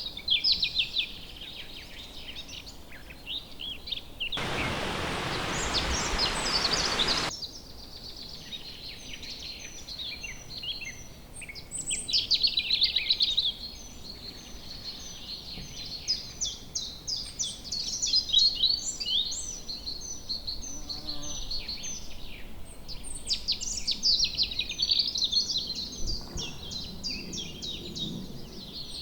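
Several songbirds singing, with fast chirps and trills overlapping throughout. About four seconds in, a loud, even hiss cuts in for about three seconds and stops abruptly.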